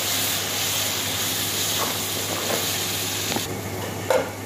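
Tomato paste and spice masala sizzling in hot oil in a wok, stirred with a slotted spoon. The sizzle drops away suddenly about three and a half seconds in.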